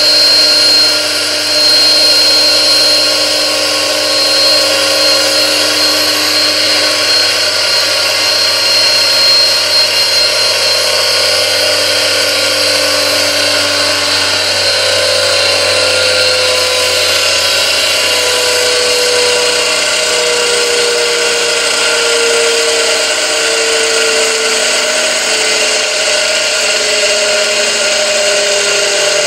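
Electric motor driving a high-speed train of 3D-printed plastic gears running in lubricating fluid under a clear cover: a steady high-pitched whine over a hissing noise. Its tones fall slowly in pitch through the second half as the gears slow.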